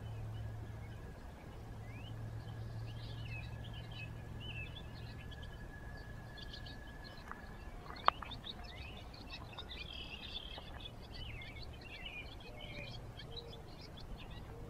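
Small birds chirping and twittering outdoors over a low steady hum, with a thin steady high tone that stops about seven seconds in. One sharp click about eight seconds in stands out above the rest.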